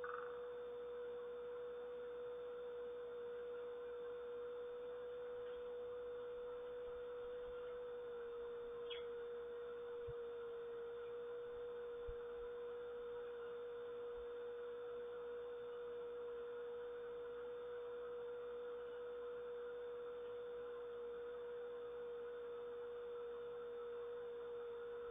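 A steady, unwavering tone in the mid range, its pitch dropping very slightly about eight seconds in, over a faint hiss. One brief thin bird chirp comes about nine seconds in.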